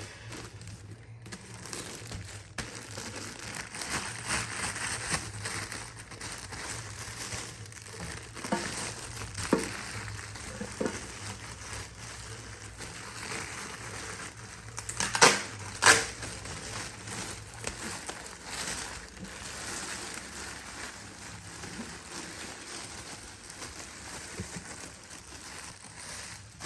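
Packaging crinkling and rustling as it is handled and unwrapped, with two loud sharp knocks about a second apart roughly halfway through.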